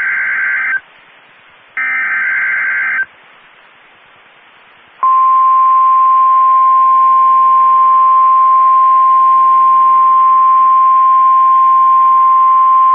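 Emergency Alert System broadcast on NOAA Weather Radio: the end of one digital SAME header burst, then a final burst about a second long, each followed by radio hiss. About five seconds in, the weather radio's warning alarm starts, one steady loud tone that holds.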